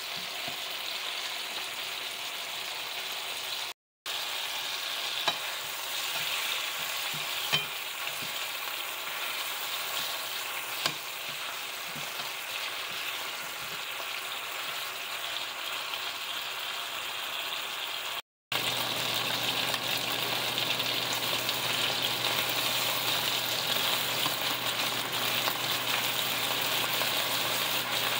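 Seasoned chicken legs sizzling as they fry in oil in a skillet, with a few sharp clicks of tongs against the pan as the pieces are turned. The sizzle cuts out briefly twice, and after the second break it is a little louder, with a low steady hum underneath.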